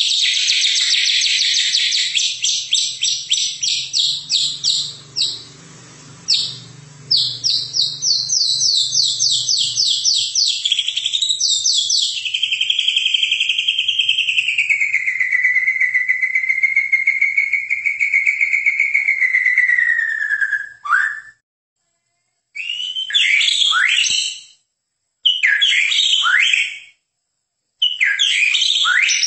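White-rumped shama (murai batu) singing loud and high: a fast run of repeated chirps, a short pause, a second run, then one long wavering note that slides slowly down in pitch. After that come short phrases of sweeping whistled notes, separated by brief pauses.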